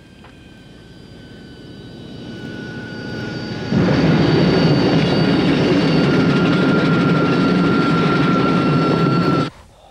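Aircraft engine roar with a steady high whine: it swells for about four seconds, jumps louder, holds steady, then cuts off suddenly near the end.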